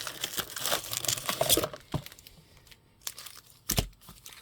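Paper-foil card pack wrapper being torn open and crinkled for the first second and a half, followed by a couple of light knocks near the end.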